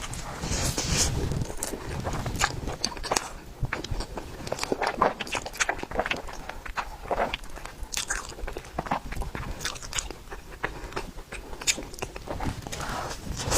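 Close-miked eating of a tiger skin cake roll filled with pork floss and sauce: biting and chewing, with many small wet mouth clicks.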